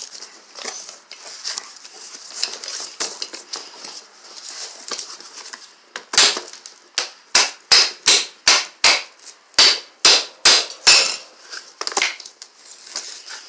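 Light handling clicks and rustles, then about a dozen sharp strikes, roughly two a second, as a hand tool is struck against the old CV axle's outer joint to get it open.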